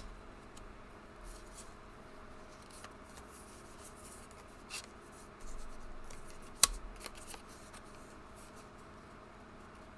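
Paper slips and tarot cards being handled and gathered up on a table: light rustling and scattered small taps, with one sharp click about two-thirds of the way in.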